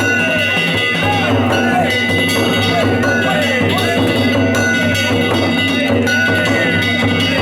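Danjiri festival music: small hand-struck gongs ringing steadily over a drum beat, with wavering voices or flute-like lines mixed in, continuing without a break.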